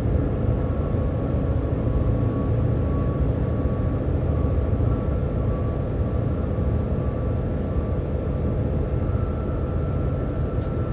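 A diesel locomotive under way, heard from inside its cab. It makes a steady low drone with the running noise of the train on the rails and faint whining tones above.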